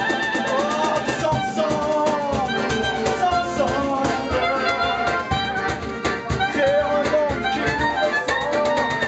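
Small acoustic band playing a lively song: clarinet and accordion over a strummed acoustic guitar with a steady beat, and a man singing.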